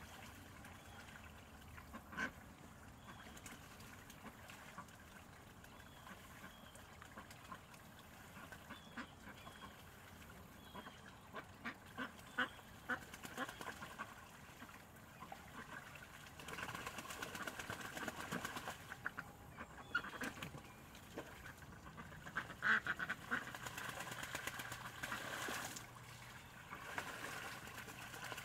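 Domestic ducks quacking and splashing in a shallow tub of water. The sounds are scattered at first and get busier and louder over the last ten seconds or so.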